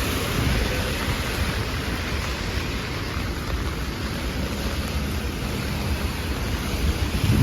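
Heavy rain falling, a steady hiss with an uneven low rumble underneath.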